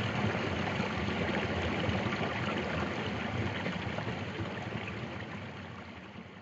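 Shallow stream water running steadily over a small lip, fading out over the last couple of seconds.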